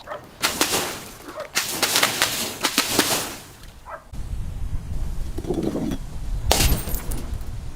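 Glass being smashed and crushed: a run of sharp cracks, crashes and crunching over about three seconds. About four seconds in, wind rumble on the microphone begins, with another sharp crash a little later.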